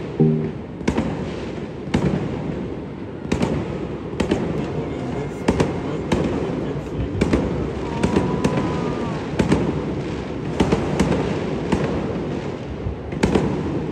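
New Year fireworks and firecrackers going off across the city: many sharp bangs and pops at irregular intervals over a constant crackle, with a brief faint whistle about eight seconds in.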